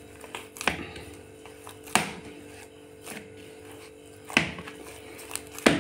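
Hands kneading and pressing a soft palm-fruit dough on a plastic plate, with a few sharp knocks as the dough is pushed down against the plate, over a steady faint hum.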